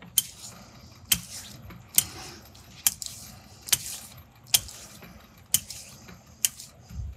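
Eight sharp metallic clicks, evenly spaced a little under a second apart, from hand work on the lathe chuck, over a faint low hum.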